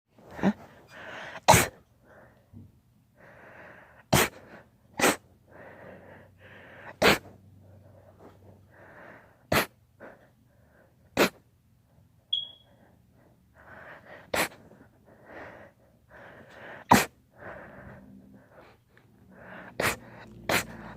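A long run of about ten sharp, loud sneezes, one every one to three seconds, with short breathy intakes between them.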